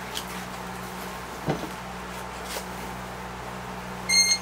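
Broomcorn stems and twine handled and pulled during hand-tying of a broom, with a soft knock about one and a half seconds in and a short, high squeak near the end, the loudest sound, over a steady low hum.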